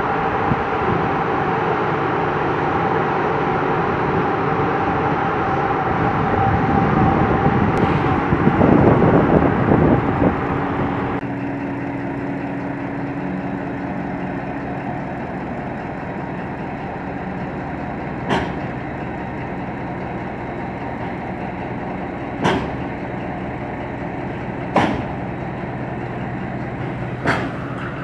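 Shunting locomotive running loud and working, then settling to a steady idle hum about eleven seconds in. Four sharp knocks come in the second half, a few seconds apart.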